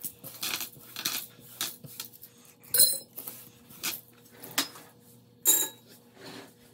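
Loose coins clinking as they are gathered off a countertop and dropped into coin jars: a series of irregular clinks, with two louder ringing ones about three and five and a half seconds in.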